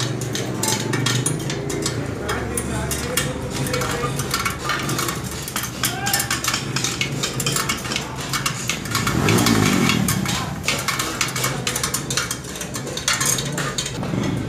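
Busy metallic clicking and clinking of a spoke wrench working the spoke nipples of a chrome spoked motorcycle wheel as it is trued, with voices in the background. A brief whir swells and fades about nine seconds in.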